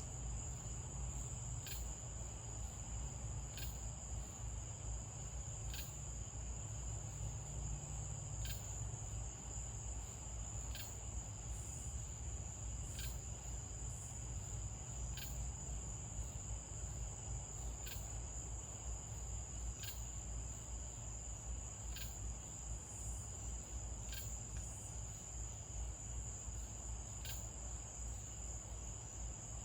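Night insects, crickets, singing in chorus: a steady high-pitched trill with a short sharp chirp repeating about every two seconds, over a low steady rumble.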